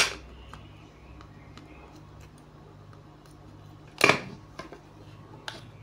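Hand tools clicking and knocking on a circuit board as an old bridge rectifier is worked loose from a charger board: a sharp click at the start and another about four seconds in, with faint ticks between, over a low steady hum.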